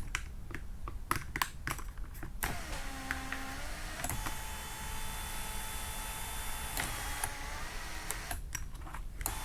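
Several clicks, then the electric drive motor of a Cadillac SRX panoramic sunroof running for about six seconds with a steady whine as the glass panel or sunshade travels, stopping shortly before the end, followed by a few more clicks.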